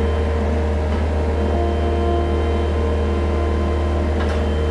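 Farm loader's engine running steadily with a low drone, heard from inside its cab while the boom lifts the forks.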